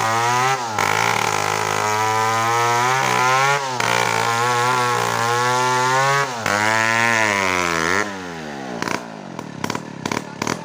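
Chainsaw engine running at high speed while cutting a coconut trunk, its pitch dipping and recovering several times as it bogs under load. About eight seconds in the revs fall away toward idle, followed by a run of sharp knocks.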